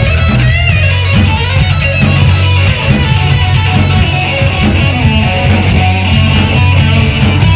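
Live rock band playing a heavy metal song with no vocals: a lead electric guitar line of wavering, bent notes over a steady drum beat with cymbals and a heavy bass.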